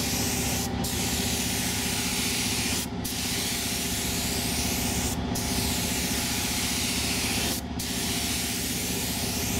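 Compressed-air paint spray gun hissing in five long blasts of about two seconds each, with brief stops between them. A steady hum runs underneath.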